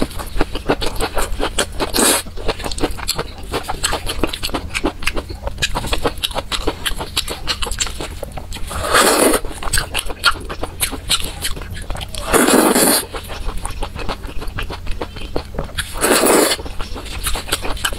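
Close-miked wet chewing and lip-smacking as a person eats soft, sauce-coated skewered food, a steady run of small sticky clicks, with four louder wet slurping bursts about 2, 9, 12 and 16 seconds in.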